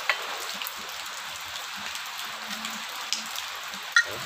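Two sharp metallic clicks from a motorcycle's rear disc-brake caliper being handled, one just after the start and a louder one near the end, over a steady hiss.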